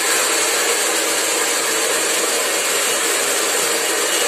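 Hand-held hair dryer running steadily with an even rushing hiss and a constant whine. It is blown against a metal cake ring to warm it so it comes loose from a chilled cream-covered layer cake.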